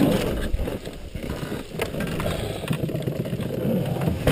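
Snowmobile engine running unevenly at low speed while the sled lies on its side after rolling over, with a few knocks through it.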